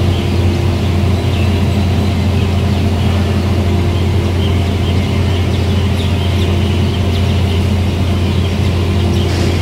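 Core board paper machine running: a loud, steady mechanical drone with a strong low hum and several steady tones from its rolls and drives, with faint short high-pitched squeaks scattered through.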